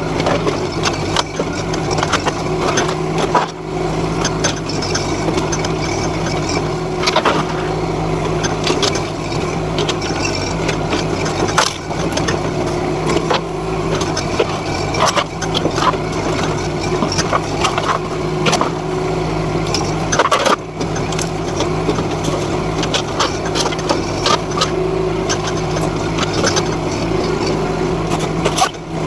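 NT18K mini excavator's engine running steadily under working load, with frequent cracks, clatters and knocks as the excavator pushes and breaks through a pile of old boards and corrugated sheet metal.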